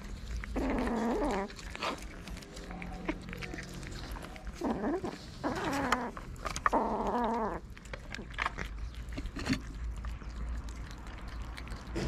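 Cats meowing in drawn-out calls with bending pitch, once about half a second in and several more times between about four and a half and seven and a half seconds, over the sounds of them eating and short clicks as the food tin and plastic dish are handled.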